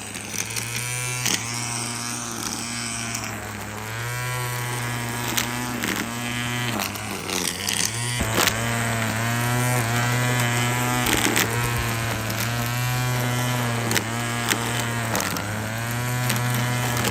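Ryobi 18 V cordless string trimmer running on its wheeled mowing deck, its electric motor whirring steadily while cutting grass. The pitch wavers every couple of seconds, and there are scattered sharp ticks.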